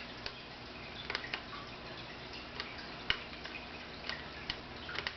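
Scattered light clicks and taps from hands working small parts of a laptop screen assembly, uneven and a dozen or so over a few seconds.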